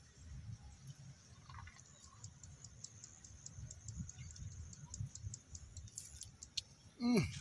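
Wind buffeting the microphone with a steady low rumble. A run of faint high ticks, about four or five a second, starts about two seconds in and stops after a few seconds. Near the end comes a short, loud sound that falls sharply in pitch.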